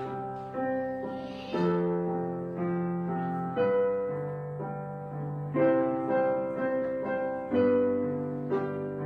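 Slow, gentle piano background music: chords struck every second or two, each left to ring and fade.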